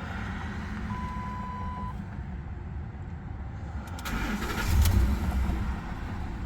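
Pickup truck's ignition switched on, with a one-second steady electronic beep about a second in. About four seconds in the engine cranks and fires, the fuel lines refilled after the tank ran dry.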